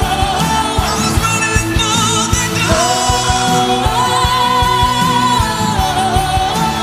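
Live rock power ballad: a male lead singer holding long notes with vibrato over a full band with a steady drum beat.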